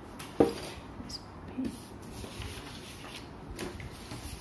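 Faint scratching of a pen going over lines on paper, with one short knock about half a second in.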